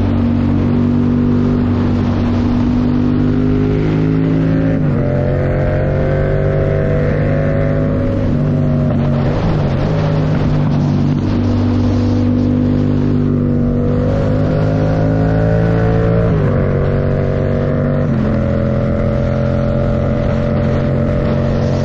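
Yamaha MT-07's 689 cc parallel-twin engine, breathing through a Mivv Delta Race full exhaust, running under way on the motorcycle. Its pitch holds steady or climbs slowly, then jumps suddenly several times as the rider changes gear and speed.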